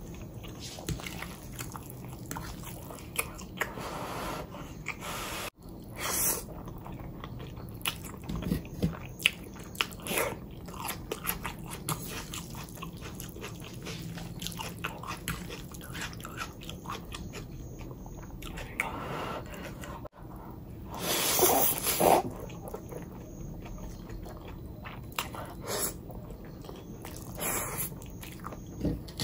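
Close-miked eating sounds: a person chewing and biting food with wet mouth clicks and small crunches, with a few louder, longer bursts, the loudest about two-thirds of the way through.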